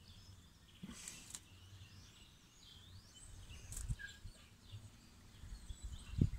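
Faint outdoor background with distant birds chirping now and then, and a few soft rustles and light knocks.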